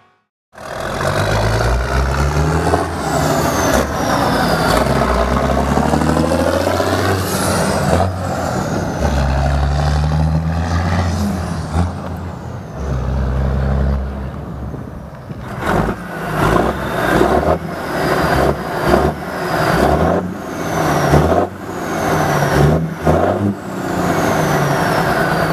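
Caterpillar 3406 inline-six diesel of a Kenworth W900 through straight-piped exhaust stacks, accelerating hard through several gears, its pitch climbing and dropping back at each shift. About fifteen seconds in it changes to a run of short rev blips, roughly one a second.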